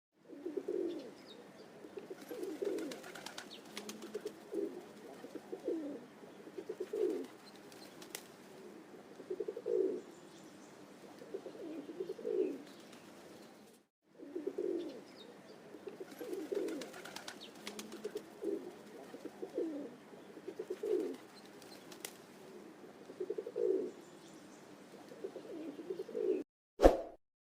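Pigeon cooing: a run of low, throaty coos, each about half a second long, repeating every second or two, with a short pause about halfway through. A brief, louder sound comes near the end.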